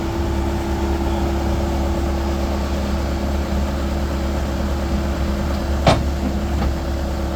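Bobcat A300 skid steer's diesel engine running steadily at idle, with one sharp click about six seconds in.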